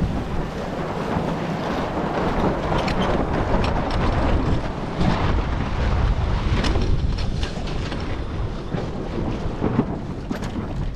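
Wind buffeting the microphone over water rushing and splashing along the hull of a sailboat under way. A steady rushing noise with scattered short splashes.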